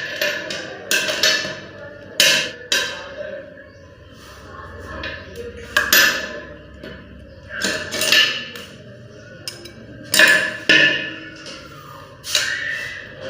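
Irregular sharp knocks and clatter, about a dozen spread unevenly, from hand work on washbasin plumbing fittings.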